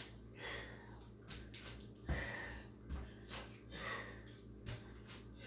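A person breathing hard from exertion, with quick audible breaths in and out about once a second, and a couple of soft low thumps about two and three seconds in.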